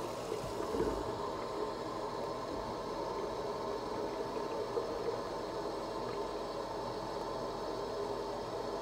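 Kitchen tap running steadily, the stream at first splashing into a stainless steel sink, then pouring into a large plastic water jug held under it.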